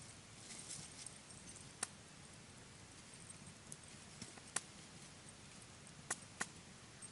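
A dog moving over dry leaf litter and twigs: a few sharp snaps and crackles, one about two seconds in, one in the middle and two close together near the end, over a faint high hiss.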